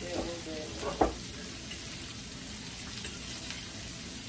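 Sausage slices sizzling steadily in a copper-coloured nonstick frying pan as they are turned with a fork, with one sharp click of the fork on the pan about a second in.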